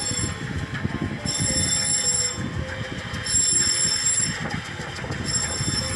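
Tugboat under way in heavy seas: a steady low rumble, with a high-pitched tone that sounds for about a second every two seconds.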